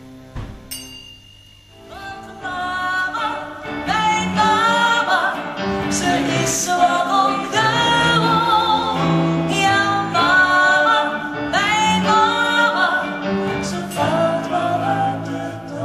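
Live band music starting about two seconds in: electric guitar under a melody line with vibrato, and no sung words.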